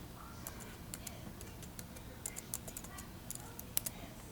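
Light, irregular clicks of a 2008 MacBook's keys and trackpad button being pressed, some in quick clusters, the loudest a little under four seconds in.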